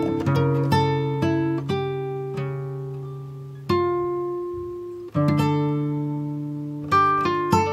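Background music on a plucked guitar: single notes and chords, each starting sharply and fading away, some left ringing for over a second.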